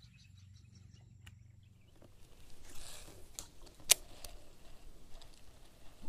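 Faint outdoor ambience with small chirps for about two seconds, then the clicks and rattle of a baitcasting reel being handled and wound, with one sharp click near the middle.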